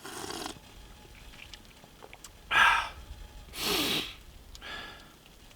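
A person's breathing: three short, noisy breaths or sniffs, the loudest about two and a half seconds in.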